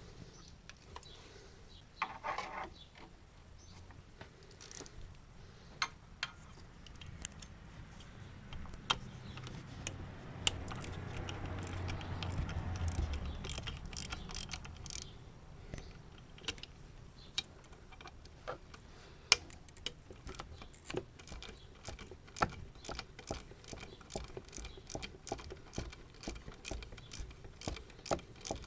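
Scattered sharp clicks and metallic clinks of hand tools and parts being handled in an engine bay, coming thicker and faster in the second half. A low hum swells and fades about halfway through.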